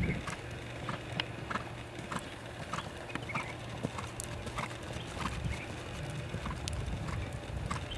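Horse trotting on a sand arena: hoofbeats at an even rhythm, about two a second, over a low steady hum.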